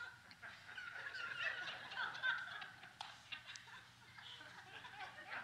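Audience laughing faintly: scattered chuckles and snickers from many people.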